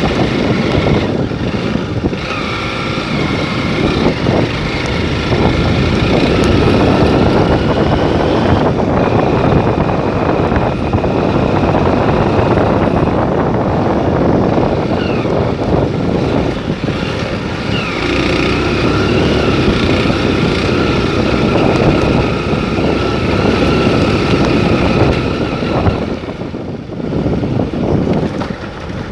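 A motor vehicle running on the move, with wind buffeting the microphone.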